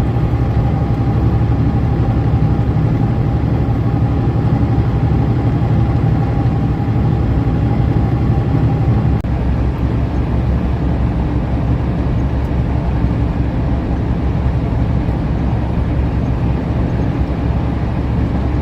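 Semi-truck driving at road speed, heard from the cab: a steady, loud low engine and road noise.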